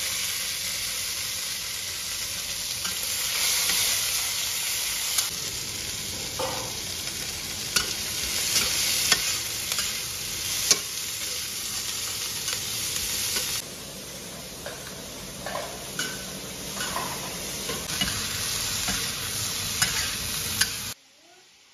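Green beans and sliced green chili peppers stir-fried in hot oil in a wok: a steady sizzle with the metal spatula scraping and clicking against the wok. The sizzle gets quieter about two-thirds through and cuts off suddenly near the end.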